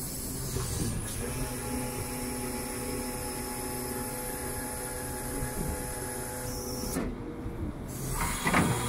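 Hydraulic system of a tilt tray truck whining steadily as its rear stabiliser legs retract. The whine breaks off about seven seconds in and starts again near the end.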